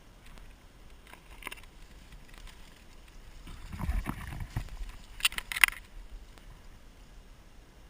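Rustling and dull low knocks of a player moving with gear, then two sharp clicks about five and a half seconds in.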